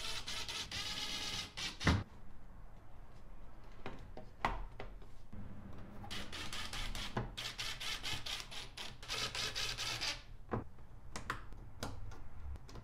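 Cordless drill-driver whirring in short runs as it drives the door trim panel's screws back in, between sharp clicks and knocks of the plastic panel being pressed onto the door. The loudest is a snap about two seconds in.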